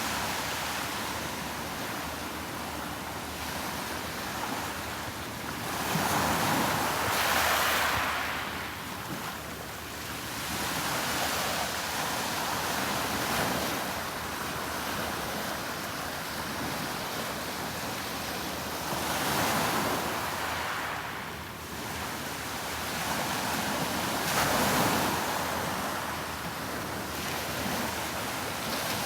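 Sea waves washing onto the beach: a steady hiss of surf that swells louder about six seconds in, again around twenty seconds, and near twenty-five seconds.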